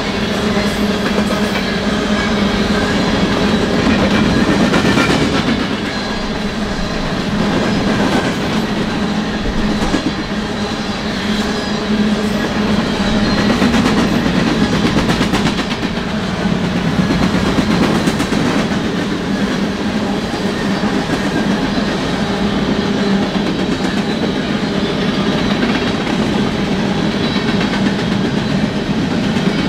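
Freight train of BNSF covered hopper cars rolling past close by: a steady rumble of steel wheels on rail, with a rhythmic clickety-clack as the wheel sets cross rail joints and slow swells in loudness as each car goes by.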